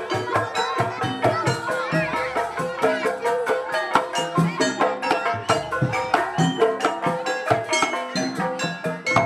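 Traditional Javanese jaranan ensemble music: drums and tuned metal percussion striking a quick, steady rhythm of about four beats a second, with a wavering melodic line coming in about two seconds in.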